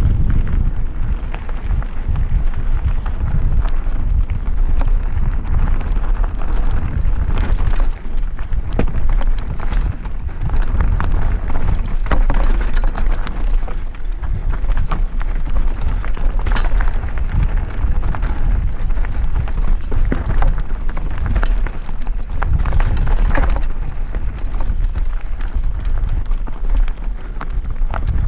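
Mountain bike ridden fast down a stony dirt singletrack: tyres crunching over gravel and wind rumbling on the camera's microphone, with frequent sharp clacks and rattles as the bike hits rocks and bumps.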